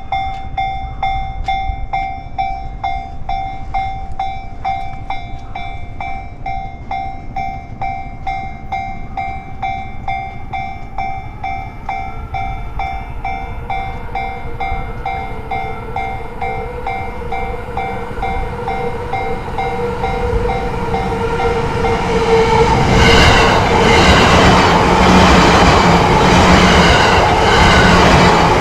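Japanese railway level-crossing warning bell ringing steadily at about two strokes a second as a Yamanote Line train approaches. After about 23 seconds the train passes close by, its wheels clattering loudly over the rail joints and drowning out the bell.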